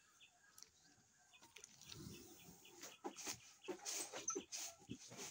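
A hand screen-printing frame being worked: a squeegee scraping across the inked mesh, then the frame knocking and lifting off the bag. The sound is a run of short, irregular scrapes and knocks that get busier over the last few seconds.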